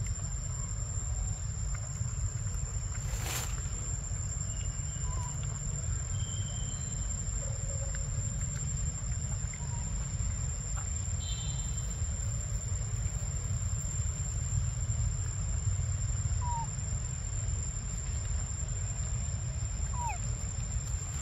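Forest ambience: a steady low rumble with a constant high, thin whine above it. A few faint short chirps come and go, and there is a single sharp click about three seconds in.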